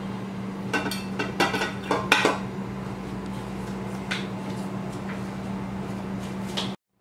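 Metal utensils clinking and knocking against a large metal cooking pot: a quick cluster of clinks in the first couple of seconds, then a few single taps.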